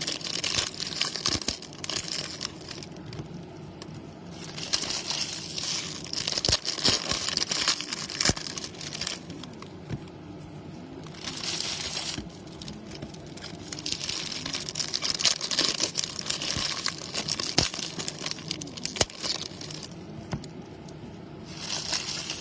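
Foil wrappers of Topps baseball card packs being torn open and crinkled by hand, in several spells of crackling with short pauses between them.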